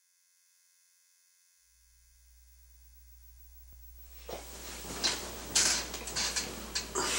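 A low steady hum fades in from silence. A little past halfway, a run of sharp, noisy sounds joins it, growing louder.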